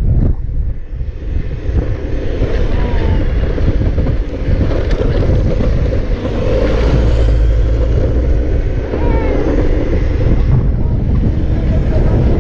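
Wind buffeting the microphone of a moving action camera, a steady low rumble of riding over pavement.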